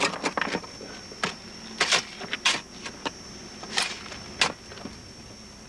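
A spade digging into dry, stony gravel: about ten sharp scrapes and strikes of the blade on grit and stones at irregular intervals, stopping after about four and a half seconds.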